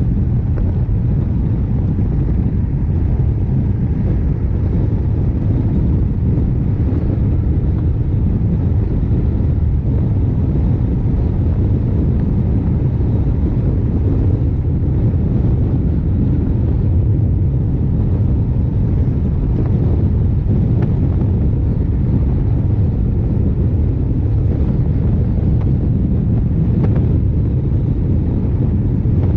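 Honda CRF1100L Africa Twin's parallel-twin engine running at a steady cruise, mixed with wind rushing over the action camera's microphone. A steady low rumble with no changes in pace.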